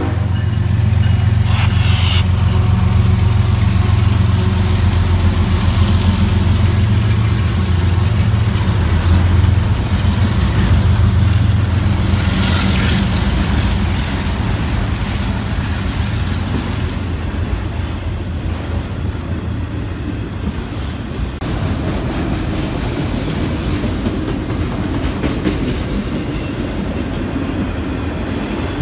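Freight train passing close by. For the first dozen seconds or so the diesel locomotives' engines run with a deep, steady hum, then it eases into the even rolling and rattling of autorack cars going by on the rails.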